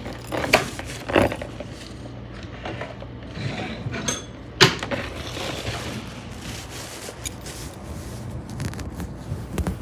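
Scattered knocks and scrapes of things being handled on a table, the sharpest knock about four and a half seconds in, over a low steady hum.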